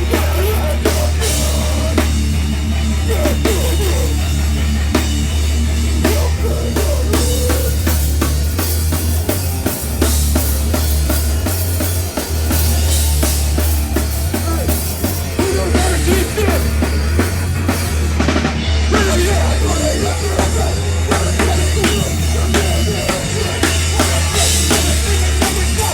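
Live heavy band playing loud, with a drum kit hammering away over a heavy, steady low end.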